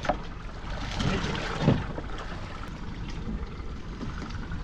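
Sea water splashing and lapping against a small fishing boat over a steady low rumble. A louder splashing knock comes about a second and a half in.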